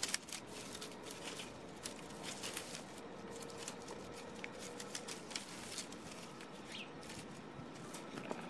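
Twigs, leaves and bark rustling with many small irregular clicks and crackles as a cat climbs through the branches close to the microphone.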